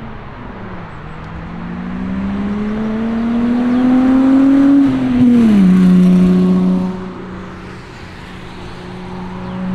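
Tuned Volkswagen-group car accelerating away, its engine revs climbing for about four seconds. A gear change about five seconds in drops the pitch sharply, and the engine pulls on at steadier revs as it grows quieter.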